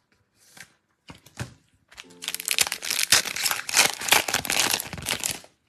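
Foil wrapper of a Donruss football trading-card pack being torn open and crinkled by hand: a dense crackling that starts about two seconds in and lasts about three and a half seconds, after a few light clicks.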